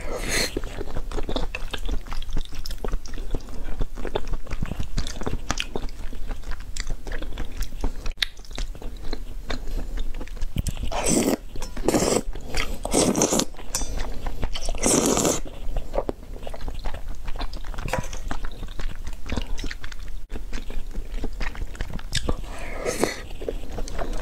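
Close-miked eating of thick noodles in black-bean sauce: wet chewing and mouth clicks throughout, with loud slurps of noodles about 11 to 13 seconds in, again around 15 seconds, and near the end.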